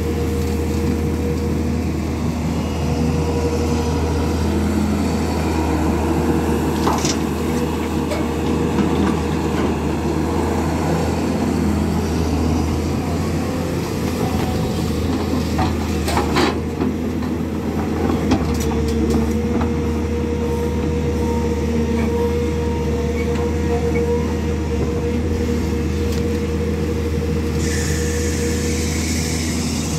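SANY 210 excavator's diesel engine running steadily as it works, with the bucket digging and dumping soil. A few sharp knocks come through, and a hiss starts near the end.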